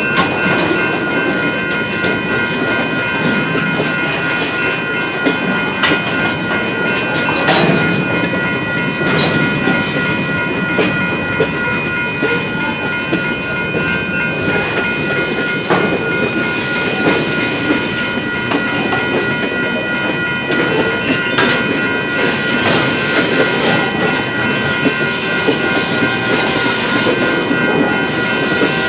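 Freight train rolling through a road crossing, its wheels clacking over the rail joints with a steady rumble. The crossing bell rings continuously over it.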